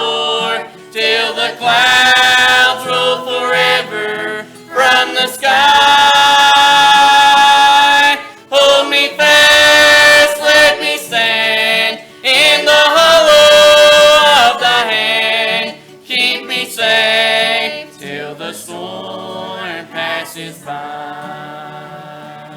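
A family vocal group singing the closing chorus of a gospel song in harmony, with long held notes, the singing softening and dying away over the last several seconds.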